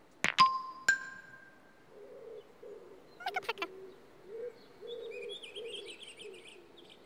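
Stones knocked together as they are stacked: three sharp clacks in the first second, each with a short ringing tone, and a quick cluster of clicks about three seconds in. Birdsong plays behind them, a low repeated cooing from about two seconds in, joined in the second half by high chirping trills.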